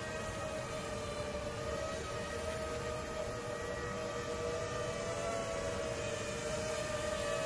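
ZMR 250 quadcopter flying overhead, its motors and propellers giving a steady whine of a few close pitches that waver slightly.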